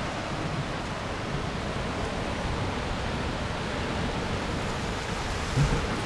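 Heavy rain pouring down in a steady, even hiss, with a brief low thump near the end.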